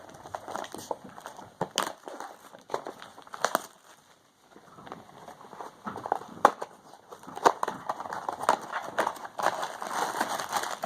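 A blind-box figure's cardboard box and plastic wrapping being handled and opened, with irregular crackling and sharp clicks and a short lull about four seconds in.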